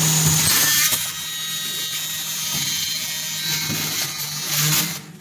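Automatic floor wiper making machine running: a steady low motor hum with mechanical rattling, and loud bursts of air hiss near the start and again about four and a half seconds in. The noise drops off sharply just before the end.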